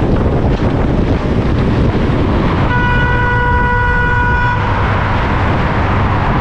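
Suzuki Hayabusa sport bike riding at speed through a road tunnel: a steady roar of wind and engine, with a vehicle horn sounding once, a single steady tone for about two seconds, near the middle as a car pulls in close alongside.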